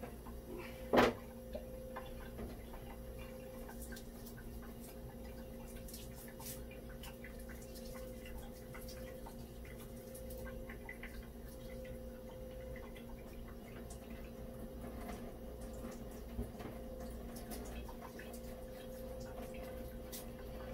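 Small clicks, taps and scrapes of a fishing reel being scrubbed clean of salt crust at a sink, with one sharp knock about a second in, over a steady low hum.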